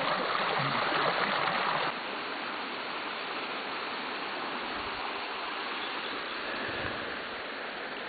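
A waterfall's water falling and splashing: a steady hiss of running water, a little louder for about the first two seconds, then even.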